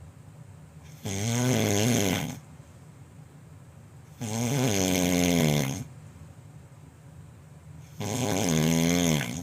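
A sleeping person snoring loudly: three long, pitched snores about every three and a half seconds, each dropping in pitch as it ends.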